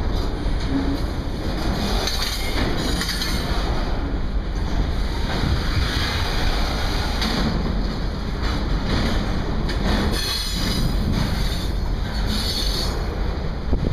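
A CSX intermodal freight train's cars, double-stack container well cars and then trailers on flatcars, rolling slowly past: a steady rumble of steel wheels on rail, with a few brief higher-pitched swells of wheel noise.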